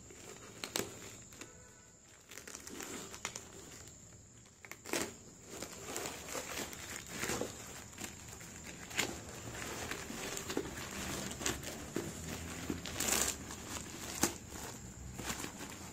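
A plastic courier bag being cut open with a small blade and pulled apart: irregular crinkling and rustling of the plastic, with sharp tearing and scraping clicks.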